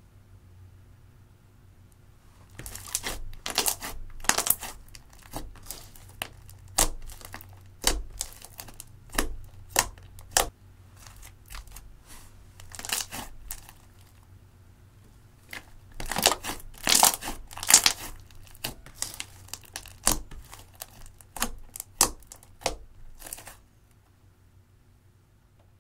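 Clear slime with crushed eyeshadow mixed in, being squished and stretched by hand: quick runs of crackly clicks and pops. It starts a couple of seconds in, comes in two busy spells, and stops a couple of seconds before the end.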